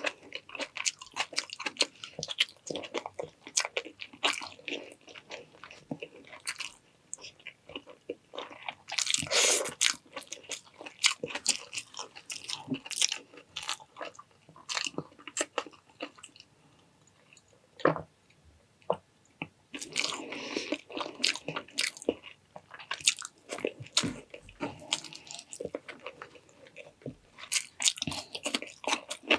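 Close-up eating sounds of a person chewing and biting into food, with wet mouth sounds and crisp crunching bites. The bites come in irregular clusters, with a quieter lull about halfway through.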